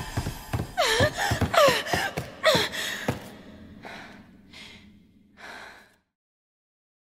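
A girl's frightened gasps and whimpering cries, several short sobs in quick succession, then a few fainter breaths that die away about six seconds in.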